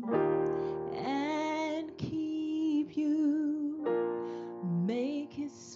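A woman singing a sung benediction in long held notes with vibrato, accompanied by sustained chords on an electronic keyboard.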